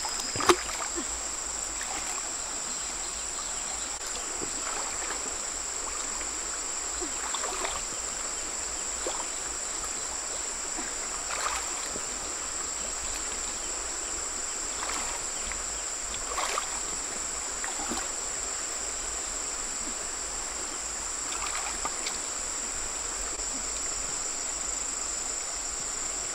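Steady high-pitched drone of insects in the surrounding forest, with shallow stream water sloshing and splashing every few seconds as stones are lifted and set down in it by hand.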